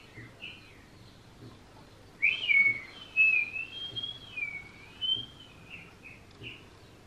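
A high whistle that wavers up and down for about three seconds, starting about two seconds in, with a few short chirp-like notes before and after it.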